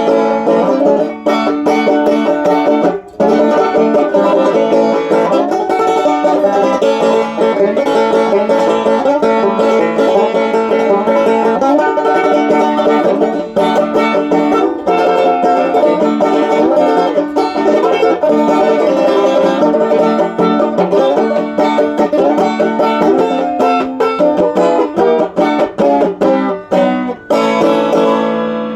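Banjo played solo, a bluegrass tune picked in quick, steady rolls, with a brief break about three seconds in, ending on a final ringing note near the end.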